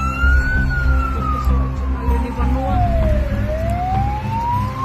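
Warning siren wailing slowly: its pitch peaks under a second in, falls steadily for about three seconds, then climbs again, over a heavy low rumble.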